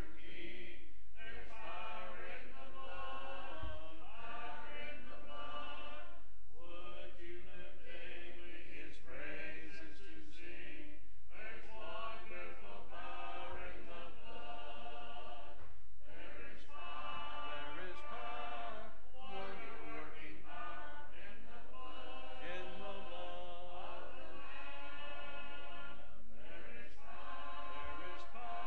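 A congregation singing a hymn together, unaccompanied by instruments, in phrases broken by short breaths about every five seconds.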